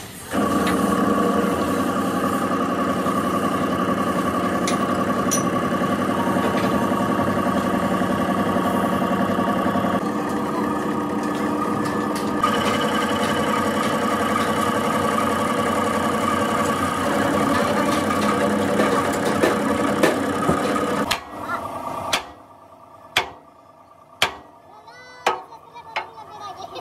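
A machine runs steadily with a dense, even hum for about twenty seconds, then stops. After it, a series of sharp knocks or taps sounds several times.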